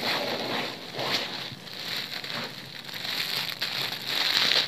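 Clear plastic packaging crinkling and rustling in uneven swells as plastic-bagged hijabs are handled and pulled apart, with a few small clicks.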